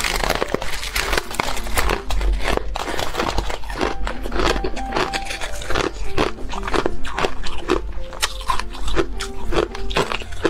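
Biting and chewing a block of ice: dense, irregular crunching and crackling, many sharp cracks close to the microphone. Background music plays underneath.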